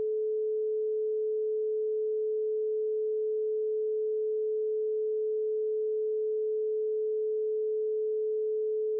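A pure 432 Hz sine tone, held steady at one pitch and level.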